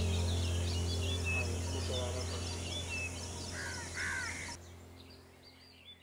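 Many small birds chirping and twittering over a steady low hum, with two harsher arched calls about four seconds in; it all fades out near the end.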